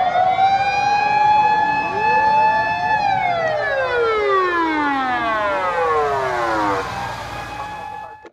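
A siren winds up over the first second, holds a steady wail for about two seconds, then glides down over the next four seconds and ends on a lower steady tone that cuts off suddenly.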